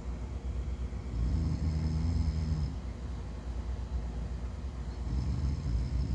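A person snoring in sleep: two snores about four seconds apart, one about a second in and one near the end, over a steady low rumble.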